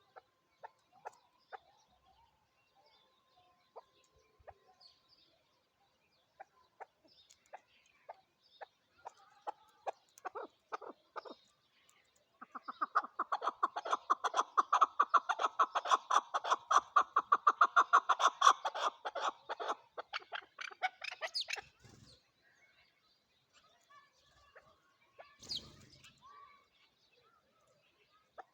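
Chukar partridge calling: scattered single clucks that quicken, then about halfway in a long, fast run of loud clucking notes lasting some eight seconds before breaking off into a few stray notes.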